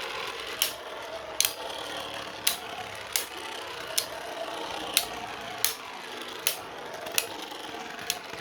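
Two 3D-printed Beyblade spinning tops, Brake Shield and Ignis, spinning in a stadium with a steady whir and a sharp clack each time they collide, about ten hits at uneven gaps of under a second.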